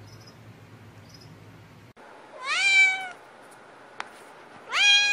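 Cat meowing: a short meow rising in pitch, then, near the end, a long drawn-out meow that rises and then holds steady. Before it there is only a faint hum with a few soft high chirps.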